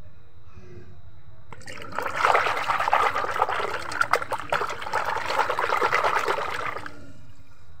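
A hand swishing and splashing through a bowl of soapy water, washing a small toy. The splashing starts about a second and a half in and stops about a second before the end.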